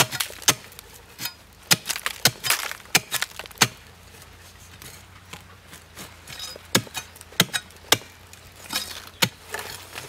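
A hand digging tool chopping into a hard earth mound: sharp, irregular strikes, a quick run of them in the first few seconds, a pause, then a few more spaced out toward the end.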